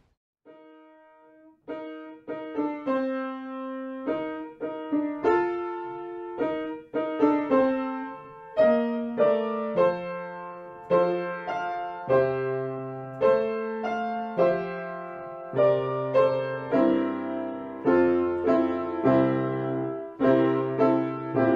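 Background piano music: notes and chords struck one after another and left to fade, starting softly and growing fuller with low bass notes about halfway through.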